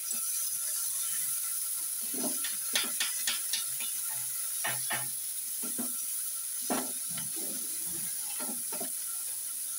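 Onions and ground spices sizzling in oil in a nonstick kadai, stirred with a wooden slotted spatula that scrapes across the pan in short, irregular strokes.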